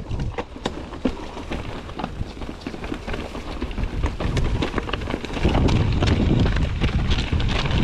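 Mountain bike rattling over rough, rocky ground: a fast run of clicks and knocks from the tyres, chain and frame, over a low rumble of wind buffeting the microphone. The rumble grows louder about five and a half seconds in.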